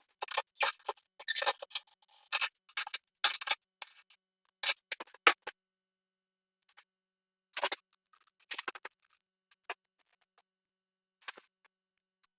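A quick run of short scrapes and clicks for about five seconds, then a few scattered ones: plumbing fittings being handled and faucet supply-line nuts tightened.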